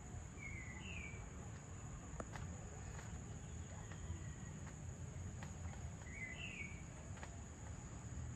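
Evening insect chorus: a steady, high-pitched trill of insects over a low background rumble, with a bird giving a short two-note chirp twice, about half a second in and again about six seconds in.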